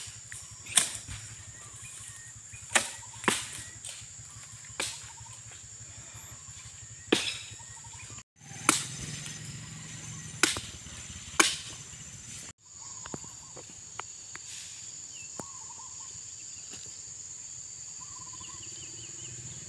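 Axe chopping the stalk of an oil palm fruit bunch: about eight sharp, separate blows spread over the first eleven seconds or so, then only a steady high insect drone in the background.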